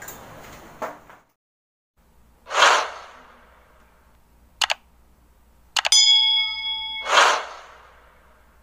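Sound effects of a YouTube subscribe-button outro animation: a whoosh, a short double mouse click, then another click and a ringing bell ding lasting about a second, followed by a second whoosh.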